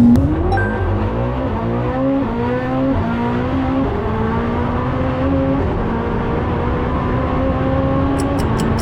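Koenigsegg Jesko's twin-turbo V8 launching from launch control. The held revs break as the car pulls away, and the pitch climbs through a series of quick upshifts, each one dropping the revs before they rise again. A few faint ticks come near the end.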